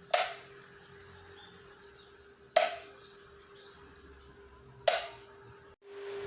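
Pedestal electric fan: three sharp plastic-sounding clicks, about two seconds apart, over the steady low hum of its motor. Near the end the hum cuts out briefly, then returns louder and steady.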